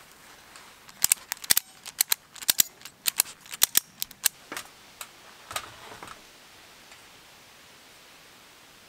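A quick, irregular run of sharp clicks or taps, about five a second for three or four seconds, then two more and a fall back to quiet background.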